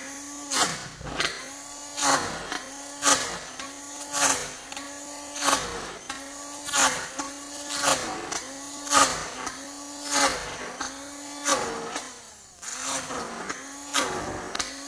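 Electric hand mixer running in a bowl of cheesecake batter. Its motor tone dips and recovers over and over, with a sharp knock about once a second as the beaters hit the bowl.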